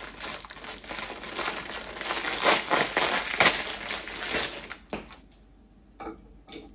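Crinkly wrapping being handled and crumpled: a dense crackle that stops about five seconds in, followed by a few light knocks.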